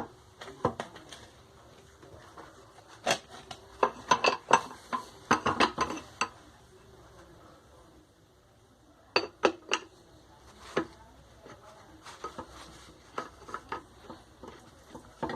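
Metal tools and washing-machine parts clinking and scraping during repair work, in clusters of quick sharp knocks with pauses between them.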